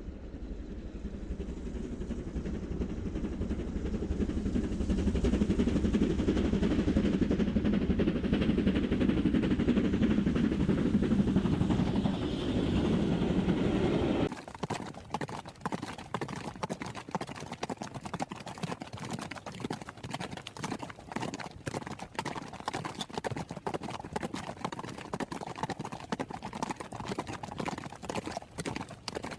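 A loud low rumble swells and then cuts off abruptly about halfway through. It gives way to the fast, dense clatter of galloping horses' hooves on a hard road.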